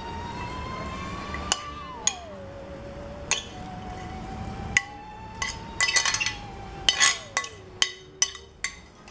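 A utensil clinking against a glass bowl as chopped filling is scooped out and dropped onto raw sausage meat; sharp clinks, a few at first and then a quick cluster in the second half. A faint tone slowly rises and then drops in pitch twice in the background.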